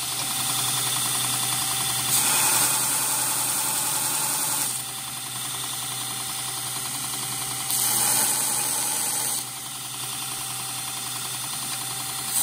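Belt grinder running with a steady motor hum. A small metal part is pressed against the abrasive belt twice for a couple of seconds each, adding a louder hissing grind of metal on the belt.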